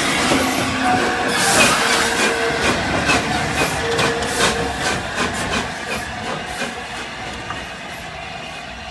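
Steam-hauled passenger train running on the rails, with a steady rumble and hiss, repeated clicks and a couple of brief wheel squeals in the first half; the sound gradually dies down as the train slows.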